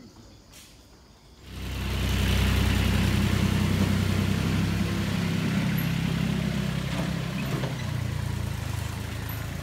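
Engine of a small truck loaded with sacks of rice paddy. It comes in suddenly about one and a half seconds in and runs steadily as the truck pulls away, dropping in level near the end as it moves off.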